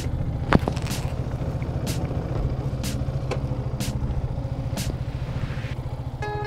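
Yamaha FZ 150 cc single-cylinder motorcycle engine idling steadily, with a sharp click about once a second and one louder knock about half a second in. Music comes in near the end.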